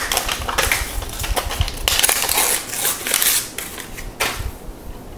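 Plastic protective film crinkling and rustling as it is peeled off a wireless charging pad, a dense run of crackles that dies down about four seconds in.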